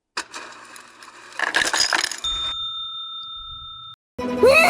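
Cartoon-style sound effects: a bright bell-like jingle and ring, then a steady high tone held for about a second and a half that cuts off abruptly. After a brief gap near the end, a sound with a rising-then-falling pitch begins.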